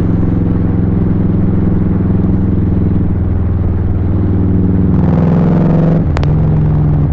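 Kawasaki Vulcan 1500 Nomad's V-twin engine running on the road, a steady note that rises a little about five seconds in, then drops with a sharp click about six seconds in. The engine is still cold, with the choke pulled out.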